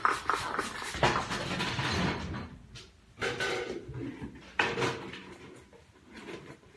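Kitchen clatter at a wooden cutting board: scraping about a second in, then a few scattered knocks and clicks of utensils and dishes as food is prepared.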